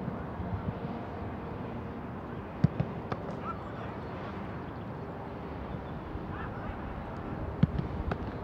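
Footballs being kicked on a grass training pitch: a few sharp thuds, two of them loud, one a little before the middle and one near the end, over steady outdoor background noise.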